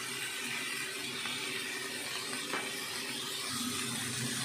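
Vegetables sizzling steadily in a frying pan, with one light click about two and a half seconds in.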